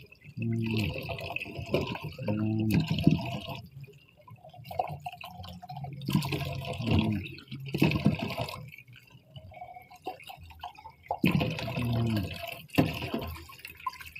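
Water splashing and pouring in a basin as plastic baby bottles are dunked, filled and emptied in spells of a second or two, rinsing the last soap out of them.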